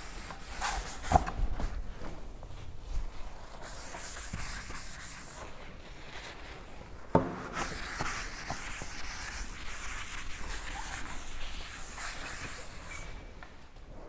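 A chalkboard eraser rubbing back and forth across a chalkboard, wiping off chalk writing in long scraping strokes, with a sharp knock about seven seconds in and a smaller one about a second in.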